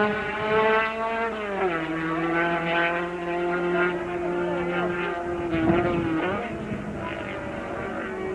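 Hill-climb racing car engine at high revs. Its pitch drops about a second and a half in and then holds steady, and a second steady engine note takes over near the end.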